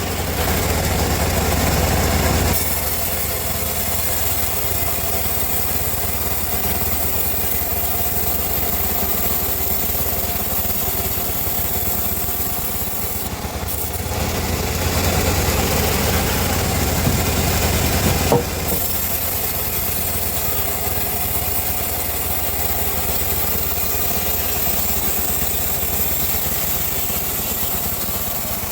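Homemade bandsaw mill running steadily with a low hum as its blade saws through teak. It grows louder for a couple of seconds at the start and again for a few seconds past the middle, and there is a single sharp click about two-thirds of the way in.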